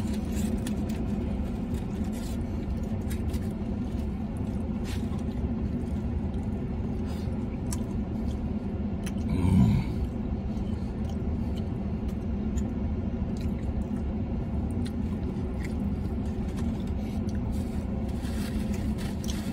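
Steady low hum inside a parked vehicle's cab, with faint clicks and rustles of a burrito wrapper being handled. About halfway through there is a brief, louder voiced exhale from the man eating.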